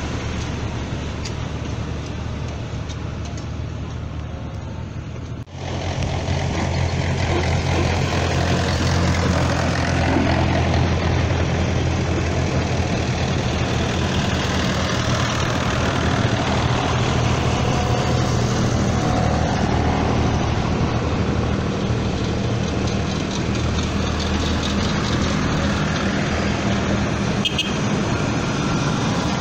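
Tractor diesel engines running as a line of farm tractors drives past one after another: a steady low engine drone. It jumps louder about five and a half seconds in and then holds.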